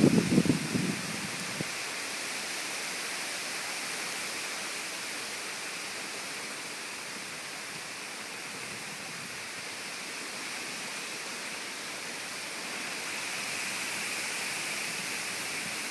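Heavy rain pouring down steadily in a storm, an even rushing hiss. In the first second a short low buffet of wind hits the microphone.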